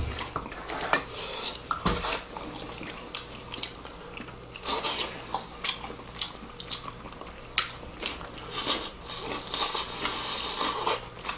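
Chopsticks clicking and tapping against ceramic bowls and plates, with chewing and lip-smacking as two people eat.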